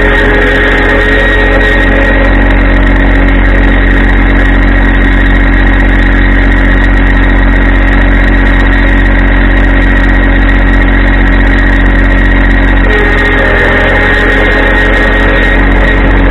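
Yanmar compact tractor's diesel engine running steadily and close by, its note shifting slightly about thirteen seconds in.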